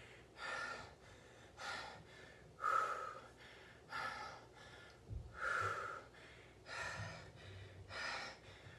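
A woman breathing hard through her mouth, about seven deep breaths at a steady pace of roughly one every second and a quarter, winded from high-intensity cardio exercise.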